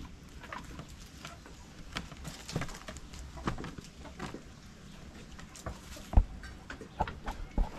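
Irregular footfalls, knocks and taps on wooden planks and a slatted shed floor. There is one heavy thump about six seconds in and two lighter ones near the end.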